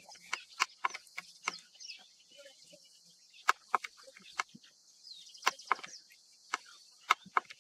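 Cheetah feeding on a gazelle carcass: irregular sharp crunches and clicks of teeth on bone and flesh, coming in clusters with short pauses between.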